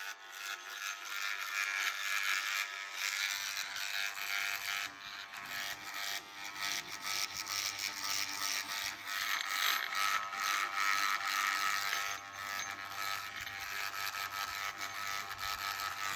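Electric beard trimmer running steadily as it cuts beard hair, then stopping at the end.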